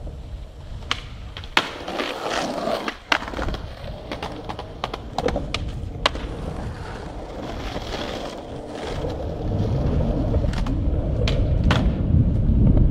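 Skateboard wheels rolling on concrete and pavement, broken by many sharp clacks of the board snapping and landing. The rolling grows louder over the last few seconds.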